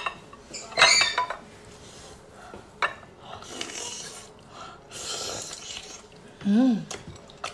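Eating sounds of firm sea snail meat: clinks against a glass sauce bowl, then biting and chewing with wet sucking noises, and a short 'mm' hum near the end.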